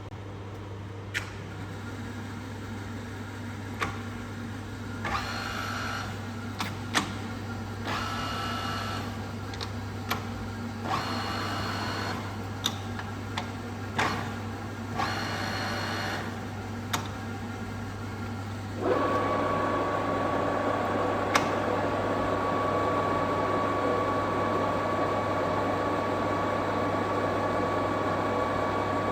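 Trens SN50C metal lathe running: a steady motor hum with sharp clicks from the controls and several short spells of gear whine. From about 19 s the spindle runs continuously, louder, with a steady high whine.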